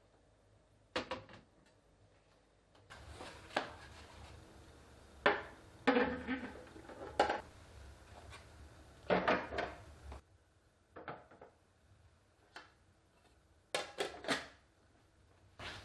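Food storage containers and groceries being handled and set down, with irregular clusters of knocks, clicks and clatter and short quiet gaps between them.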